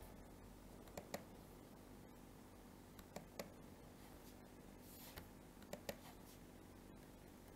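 A few computer mouse clicks, some in quick pairs, over near-silent room tone with a faint low hum.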